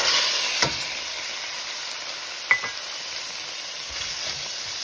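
Diced raw chicken hitting hot oil in a stainless steel skillet and sizzling steadily, the sizzle starting suddenly as the meat goes in. A utensil clinks against the pan twice as the pieces are stirred.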